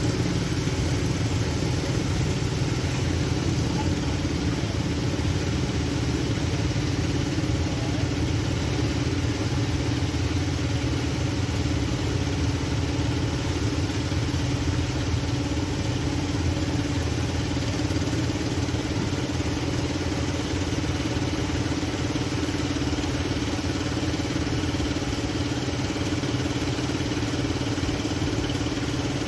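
A vehicle engine running steadily at an even speed, with no revving.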